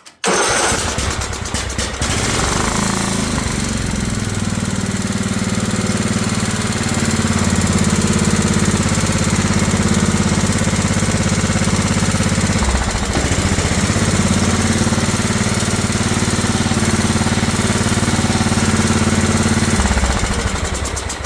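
Craftsman riding mower engine started on a shot of carb cleaner. It catches within about two seconds and runs steadily at a high idle, then winds down and stops near the end.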